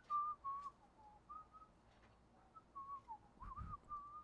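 A person whistling a short, wandering tune in a series of brief notes, with a low bump about three and a half seconds in.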